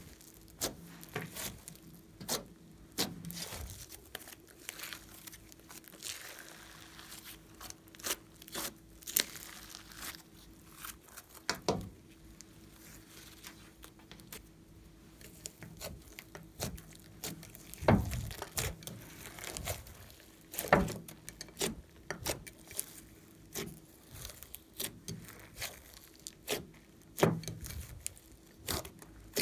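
Hands kneading and pressing slime, giving irregular sticky pops and crackles with quieter pauses between them.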